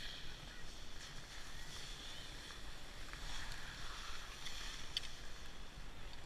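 Skis sliding and scraping over snow, a soft uneven hiss with a few faint ticks.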